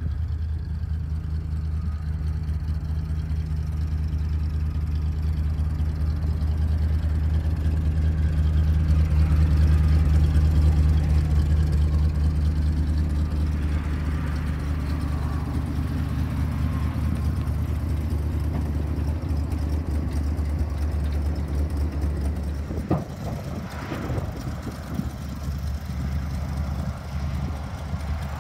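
1979 Chevrolet C70 grain truck's engine idling steadily, growing somewhat louder for a few seconds near the middle. A single sharp click is heard about three-quarters of the way through.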